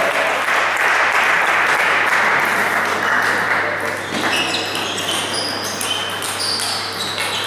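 Table tennis hall ambience: a steady murmur of voices, scattered clicks of table tennis balls, and a few short high squeaks in the second half.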